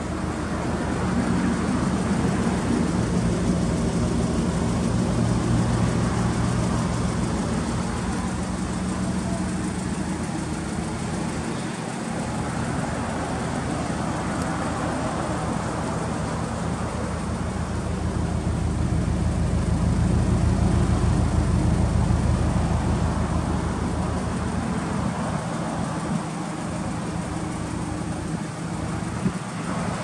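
Subaru Impreza WRX STi (GC8) turbocharged flat-four idling steadily, heard at the exhaust tailpipe. It swells louder for a few seconds about two-thirds of the way through.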